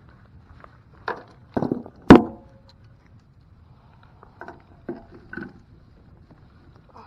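A string of irregular knocks and clunks, the loudest about two seconds in with a short ringing tail, then a few lighter knocks a couple of seconds later.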